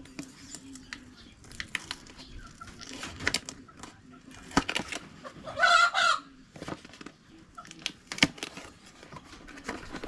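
A chicken calls once, briefly, about five and a half seconds in; this is the loudest sound. Around it are scattered clicks and rustles of packaging being handled as a Starlink Ethernet adapter is unboxed.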